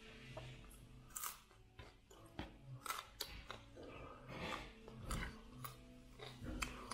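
Raw broccoli being chewed, with a string of irregular crisp crunches about half a second to a second apart.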